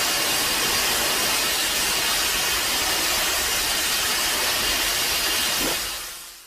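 A steady, even hiss like escaping steam, from a monster sound-effect mix, fading out over the last second.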